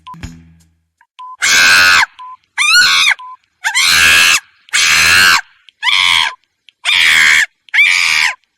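Monkey shrieking: a series of about seven loud, shrill screaming calls with rising and falling pitch, each about half a second long and coming about once a second.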